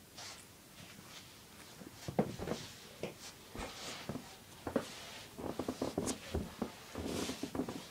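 Handling noise: irregular small clicks, taps and rustles, with a quick run of clicks about five and a half seconds in.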